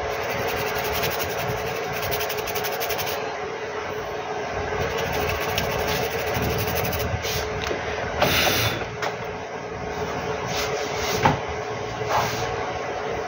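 Steady hum of a small machine running, with a fast fine ticking for stretches, and a few sharp clicks about eight, eleven and twelve seconds in.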